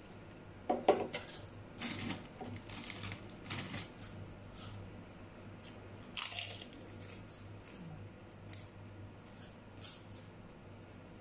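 Crisp crunching of kerupuk crackers bitten and chewed close to the microphone: a run of sharp crunches in the first few seconds, another burst about six seconds in, then a few fainter cracks, over a faint low hum.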